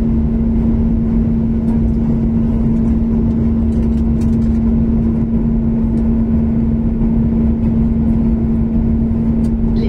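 Cabin noise of a Boeing 737 MAX in flight: its CFM LEAP-1B jet engines and the airflow make a steady drone with a constant hum.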